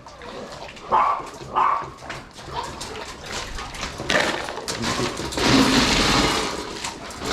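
A dog gives two short barks about a second in. After that comes a louder stretch of noise a few seconds long, around five to six seconds in.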